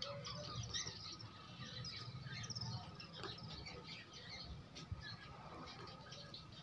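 Faint bird chirps, repeated short calls, mixed with light clicks of chickens' beaks pecking grain from a steel bowl.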